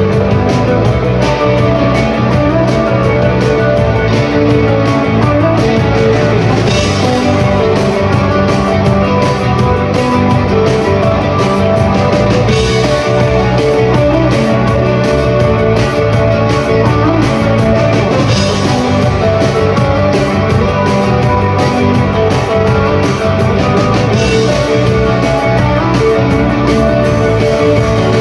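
Live rock band playing loud and steady: electric guitars over bass and a constant run of drum hits.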